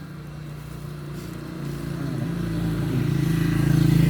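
A motor vehicle engine running, growing steadily louder as it approaches and loudest near the end.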